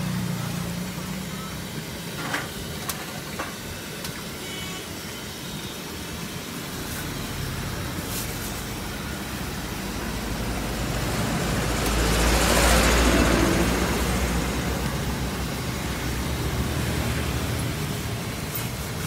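Road traffic: a steady low engine hum, with a vehicle passing close that swells up and fades away about twelve to thirteen seconds in. A few light clicks a couple of seconds in.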